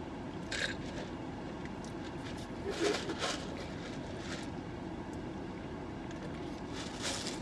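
Steady low rumble inside a car, with a few short hissy sounds from eating or handling things in the seat.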